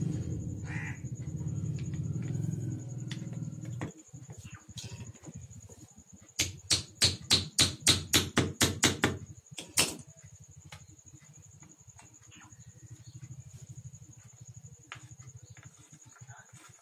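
A fast run of about a dozen sharp metal-on-metal taps over some three seconds, then one more, as steel pliers are struck against the end of a Maruti steering rack during reassembly. A low steady hum is heard through the first four seconds.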